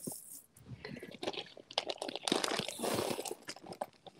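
Small glass beads trickling from a hand into a small plastic zip bag, with the bag's plastic crinkling as it is handled. A run of tiny clicks and rustles, growing busier and louder about halfway through.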